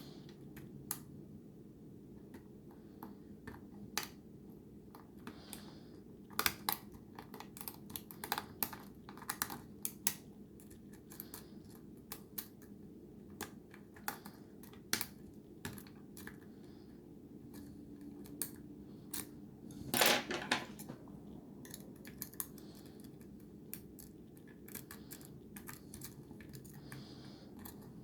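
Lock pick and tension wrench working the security pins of a Schlage pin-tumbler lock: scattered sharp, crunchy clicks and scrapes at irregular intervals, with a louder rattling burst about twenty seconds in.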